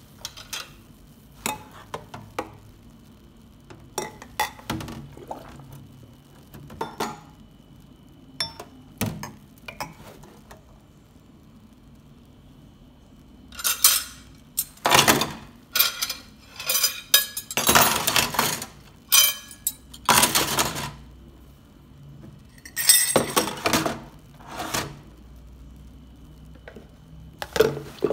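Dishes and cutlery clinking and clattering as they are handled. The clinks are scattered for the first ten seconds or so, then come in busier runs of clatter from about halfway through.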